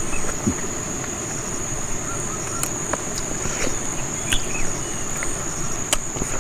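Insects droning with one steady high-pitched tone, and scattered soft clicks of someone eating with his fingers, picking at a chicken bone.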